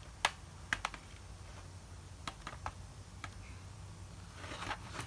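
Scattered sharp plastic clicks and taps from a Dell Inspiron N5010 laptop being handled and tipped up on its edge, then a short rustling scrape near the end.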